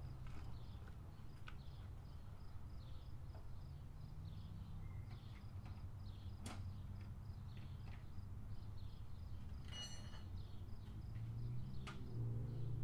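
Faint outdoor background: a steady low hum with scattered faint clicks and a brief high chirp about ten seconds in. The hum grows louder near the end.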